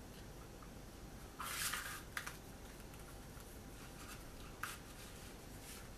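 A hatchet's wooden handle is pushed through a leather belt loop: a brief scraping rub of leather and wood about a second and a half in, then a couple of small clicks.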